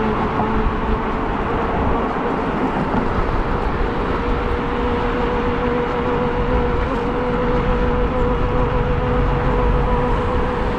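Riding noise from an e-bike under way: steady wind rush over the microphone with a steady motor whine that edges up slightly in pitch a few seconds in.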